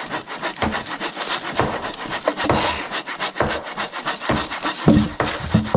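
A hand saw cutting through a thick log in quick back-and-forth strokes, about three a second.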